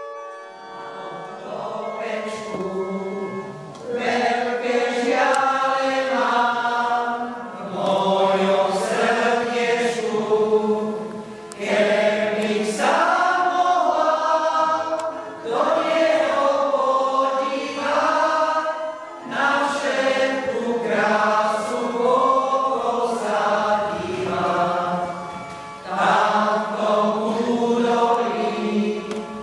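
Mixed choir of men's and women's voices singing a song in phrases of a few seconds, with short breaks for breath between them.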